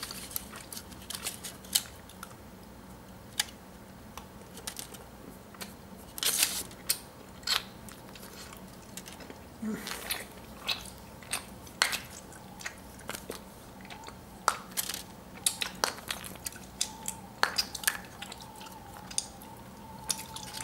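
Scattered sharp clicks and crinkles of a plastic surprise-egg capsule being gripped and pried at, with its foil wrapper rustling.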